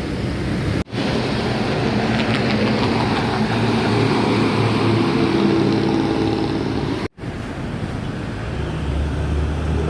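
Road traffic: a motor vehicle's engine running as it passes, with tyre and road noise. The sound drops out for an instant twice, about a second in and about seven seconds in.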